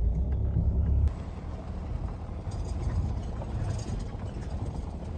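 Car running, a heavy low rumble that drops abruptly about a second in to a quieter, rough, steady noise.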